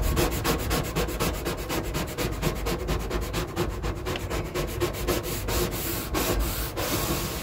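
Vinyl side-stripe decal being rubbed down hard through its paper transfer tape, in quick, even back-and-forth strokes several times a second. The stripe is being pressed onto the car's door paintwork so that it bonds with no air bubbles.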